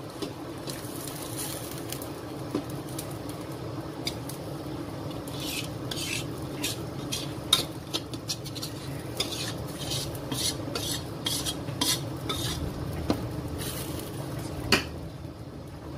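A spatula scrapes fried soto spice paste out of a stainless-steel pan into a pot of boiling broth. Repeated short metal scrapes and clinks, thickest in the middle stretch, sound over the steady bubbling of the pot.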